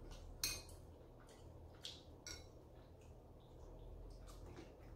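A few faint, short clicks of mussel shells knocking together as they are handled by hand, the sharpest about half a second in, with softer ones after.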